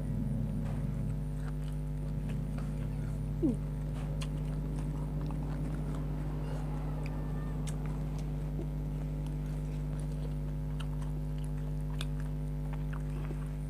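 A person eating grilled chicken: scattered wet mouth clicks and smacks of chewing, with one short squeak about three and a half seconds in, over a steady electrical hum.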